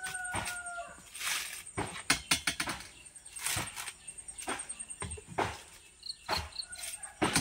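Coconut husk being torn off on a metal husking spike: a series of sharp ripping, cracking tears of the fibre, several in quick succession about two seconds in. A long bird call sounds at the start.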